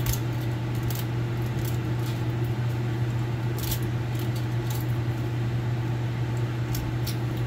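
A steady low mechanical hum, like a running fan or motor, with a few light, scattered clicks of small metal pieces being handled.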